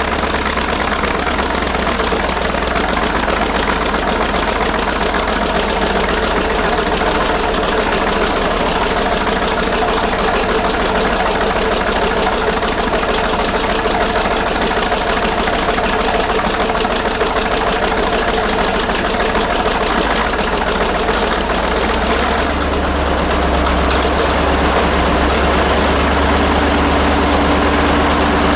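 1948 BUDA 8-DC-1125 straight-eight diesel engine of a Sicard rotary snow blower, running steadily shortly after a cold start. About three-quarters of the way through its note changes and it gets a little louder.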